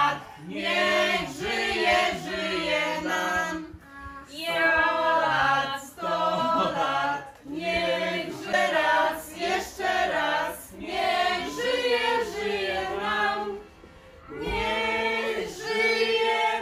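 A small group of adults and children singing a birthday song together in short phrases, ending on a long held note.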